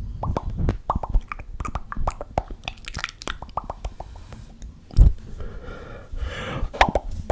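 Close-up ASMR mouth sounds: a quick run of wet tongue clicks and lip pops, several a second. About five seconds in there is a loud low thump, then a short hissing, breathy stretch before the clicking resumes.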